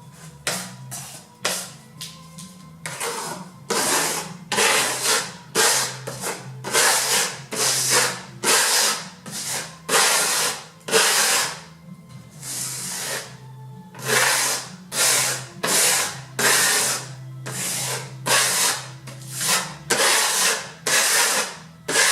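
A steel trowel scraping decorative plaster onto a wall in short, quick strokes, about one every half second. Quiet background music runs beneath.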